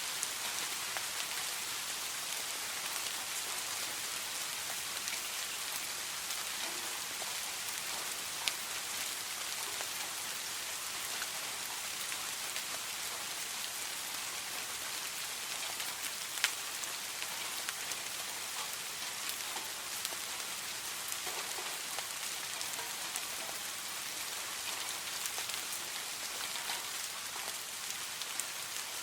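Steady rain falling: an even hiss of many drops, with scattered individual taps and two sharper drop hits, about a third and just over halfway through.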